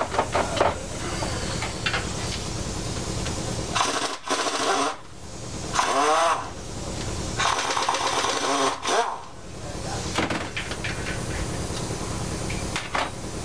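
Air tool, most likely an air ratchet, running in three short bursts with a whine that rises and falls, as bolts are backed out of an Evinrude/Johnson 60-degree V6 outboard powerhead during teardown. A few metal clinks sound near the start.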